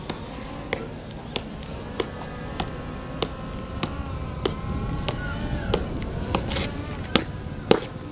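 Military parade march: sharp beats at a steady marching pace, about three every two seconds, with a faint band melody of held notes through the middle.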